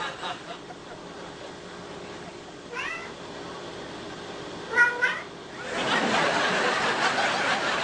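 Domestic cat meowing twice, short rising calls about three and five seconds in, after being coaxed to "say mama". A louder steady noisy hiss follows from about six seconds in.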